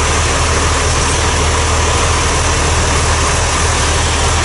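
John Deere 3350 tractor's diesel engine running steadily while its hydraulic lift arms raise the pick-up hitch hook into place.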